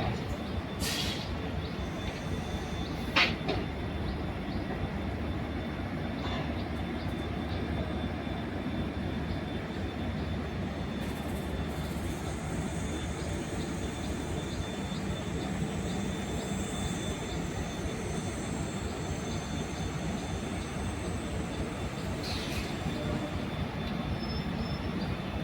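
Agartala–Mumbai LTT AC Express (train 15660) pulling out of the station: a steady rumble of the rolling coaches, with faint regular clicking of wheels over rail joints and one sharp clack about three seconds in.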